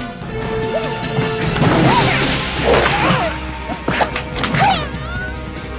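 Kung-fu fight sound effects made with the mouth: repeated whacks and smashes with swooping cries and whooshes, over background music.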